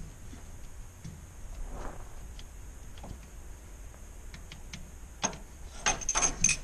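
Scattered light clicks and taps from parts and tools being handled, with a louder run of clicks near the end.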